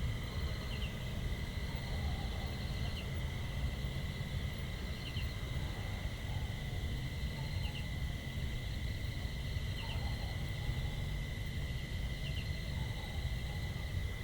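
Rural outdoor ambience: a chorus of insects holding a steady high-pitched drone, with a short double chirp repeating every two seconds or so, over a constant low rumble.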